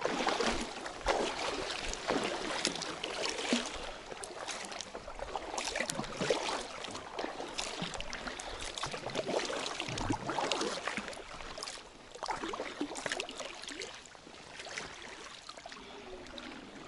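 Double-bladed paddle dipping into calm river water beside an inflatable kayak: uneven splashes and drips, a stroke every second or two.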